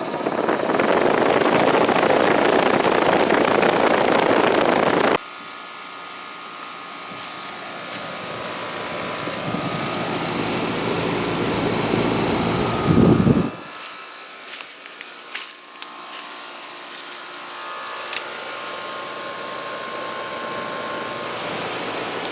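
Trane XR14 5-ton heat pump outdoor unit starting up and running in cooling mode. A loud rushing noise cuts off suddenly about five seconds in, another rush swells until about two-thirds of the way through and stops sharply, and after that the unit runs with a steadier hum and a few sharp ticks.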